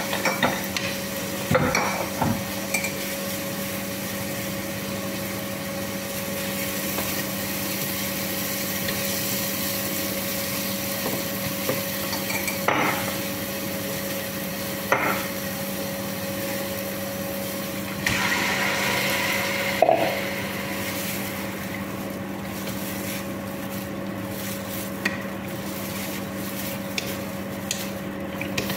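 Long wooden spatula stirring and scraping food in a large cooking pot, with a few sharp knocks against the pot scattered through, over a steady electrical hum.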